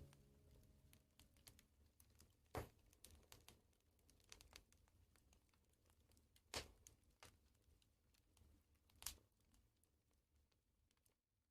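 Faint crackling of a wood fire: sparse small pops and crackles, with three louder pops spread through, as the last piano notes die away at the start.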